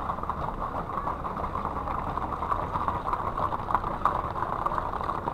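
Horses' hooves clopping irregularly on asphalt as a herd walks past, over the steady low rumble of an idling vehicle engine.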